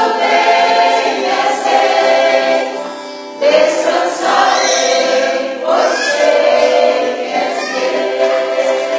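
Mixed choir of men's and women's voices singing a worship song in harmony, accompanied by acoustic guitar. The singing dips briefly a little past three seconds, comes back in loudly, and fades toward the end.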